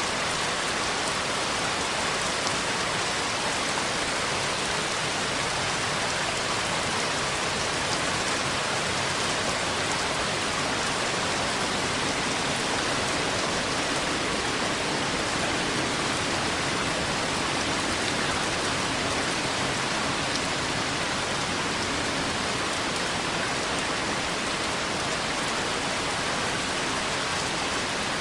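Steady rain falling, a constant even hiss of rain with no change in strength.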